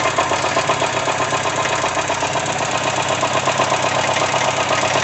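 Volkswagen Gol AT 1.0 engine running with a continuous mechanical knocking noise from inside the engine. The mechanic cannot yet place the fault: pistons, head gasket or crankshaft.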